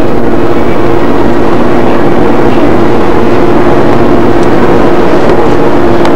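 Hot tub pump and jets running: a loud, steady hum over rushing, churning water.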